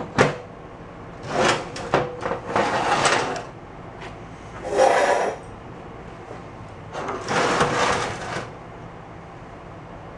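Motorcycle engine case with its transmission gears exposed being handled and set back onto its stand on the workbench: four scraping, sliding noises of a second or so each, with a few knocks.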